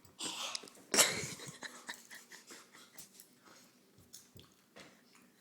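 Close-up handling noise and breathing: a short breathy rush near the start, a sharp knock about a second in, then faint scattered clicks and taps.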